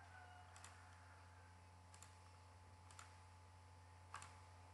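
Near silence over a low steady hum, with four faint computer mouse clicks spread across it, the last just after four seconds in.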